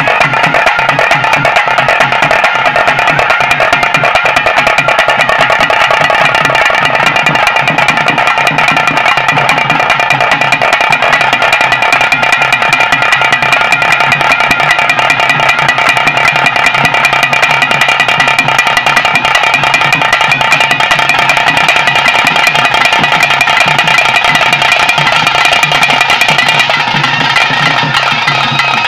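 Traditional bhuta kola ritual music: reed pipes playing steady, shrill sustained tones over fast, continuous drumming.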